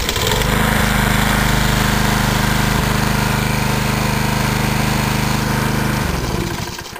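Repaired petrol lawn mower engine running steadily at an even speed, no longer dying seconds after starting. It is shut off about six seconds in, and the engine winds down and falls silent.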